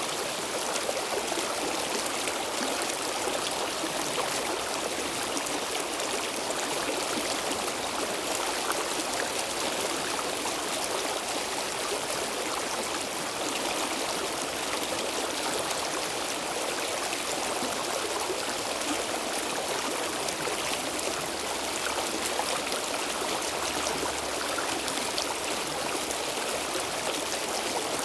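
Stream water flowing steadily over stones in an even rush, with fine trickling and splashing.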